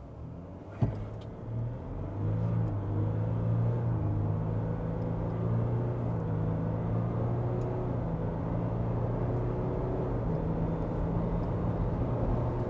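Ford Everest's 3.0-litre V6 turbo-diesel at full throttle, heard from inside the cabin as it accelerates hard from a standstill towards 120 km/h; the engine note climbs and breaks off at each upshift of the automatic gearbox. A single sharp click comes just under a second in, before the engine note builds.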